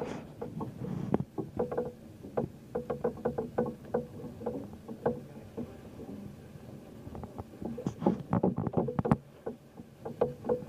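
Irregular small knocks and slaps of water against a moored boat's hull, with a denser, louder cluster of knocks about eight seconds in.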